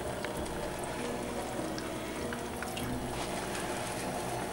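Chicken-broth sauce bubbling steadily in a pan over a high flame.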